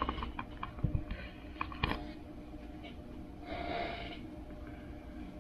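Quiet room noise with a faint steady hum, a few light clicks in the first two seconds, and a breath about three and a half seconds in.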